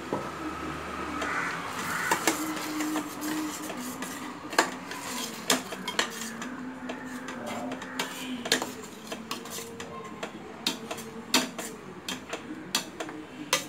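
A spatula scraping and knocking irregularly against the sides and bottom of a metal pressure cooker pan as thick tomato masala is stirred while it fries, before the oil separates.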